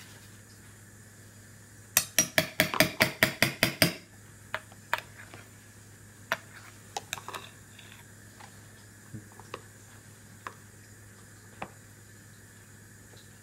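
Clear plastic cups clacking together and against a high-chair tray: a quick run of about ten clacks, about five a second, then scattered single taps.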